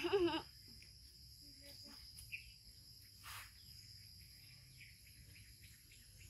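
Insects, crickets among them, droning steadily in high, unbroken tones. Right at the start a young animal gives a short wavering squeal, the loudest sound, and a brief rustling swish follows a few seconds later.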